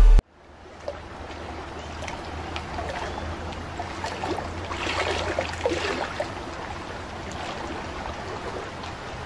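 Stream water running and trickling over rocks, a steady rushing with small splashes.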